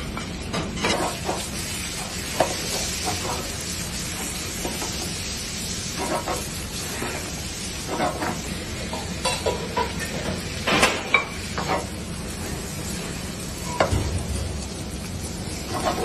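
Squid rings and tentacles sizzling in hot oil in a frying pan. A wooden spoon stirs them and scrapes and knocks against the pan every few seconds.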